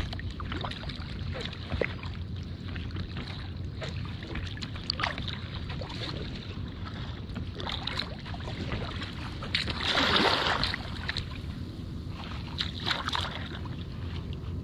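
Kayak paddling on calm water: water splashing and dripping from the paddle and lapping against the plastic hull at irregular moments, over a steady low rumble of wind on the microphone. A louder rush of water comes about ten seconds in.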